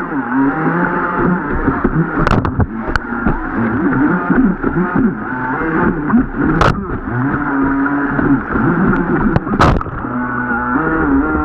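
RC jet boat's motor whining, its pitch rising and falling as the throttle is worked, with a few sharp knocks scattered through.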